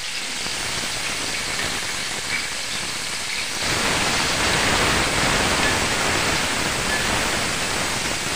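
Sliced onions and green chillies sizzling in hot oil in a metal pot, a steady hiss that grows louder about three and a half seconds in.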